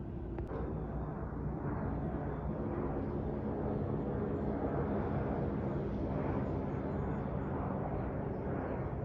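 Airliner's jet engines passing overhead: a steady rumble that swells a little a few seconds in and holds.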